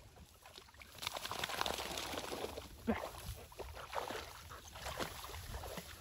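A dog swimming in a shallow marsh channel, its paddling making irregular splashing and sloshing in the water.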